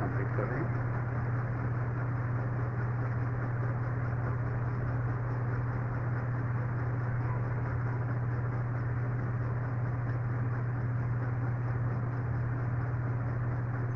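A steady low hum with an even hiss above it, unchanging and without speech.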